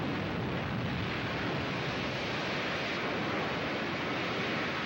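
Continuous roaring rush of noise from the head-on collision and explosion of two steam locomotives as the wreck burns and settles, with no separate crashes standing out.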